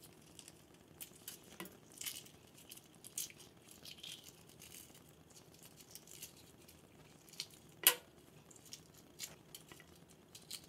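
Hard-boiled egg being peeled by hand: faint, scattered crackles and ticks of shell breaking and pulling away, with flakes dropping into a stainless steel sink and one sharper click about eight seconds in.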